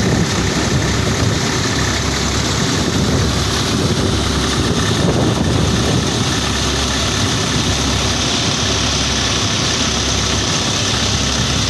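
Tractor-powered paddy thresher running steadily: the Swaraj 735 FE tractor's three-cylinder diesel engine drives the thresher's drum as paddy is fed through, giving a continuous, even engine-and-machine drone.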